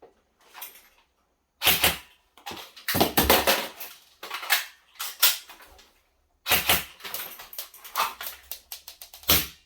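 Airsoft shooting drill: a Specna Arms Edge M4A1 electric rifle and a W.E Tech Glock 19 gas blowback pistol firing in pairs, with the clatter and clicks of a magazine change and a weapon transition in between.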